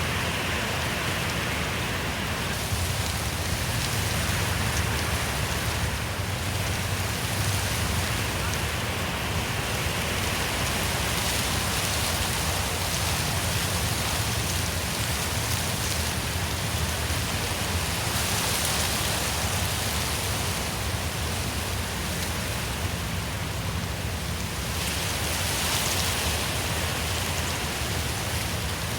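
Wind blowing through forest trees: a steady rushing of leaves and branches that swells and eases in slow gusts, over a low rumble.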